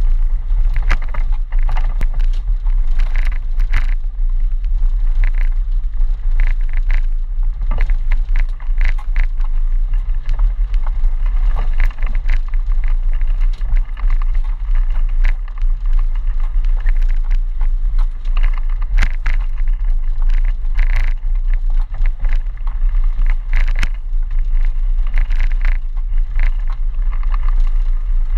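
Land Rover Defender 90 driving through mud and puddles, heard from inside the cabin: a steady low engine and drivetrain drone with frequent knocks, rattles and splashes as the body jolts over the ruts and water and mud hit the windscreen.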